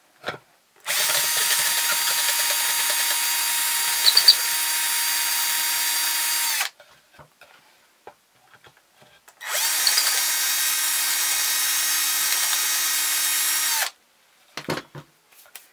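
Handheld electric drill with a twist bit running at steady speed as it reams out the holes in a thin slice of log. It runs twice, for about six seconds and then about four, with a short pause between. A few brief clicks come about four seconds in.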